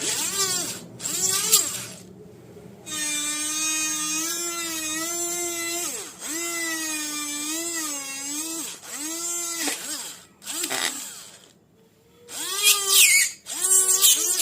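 Homemade 12 V DC-motor mini drill whining in repeated short bursts as it is switched on and off, its pitch dipping and recovering within each run.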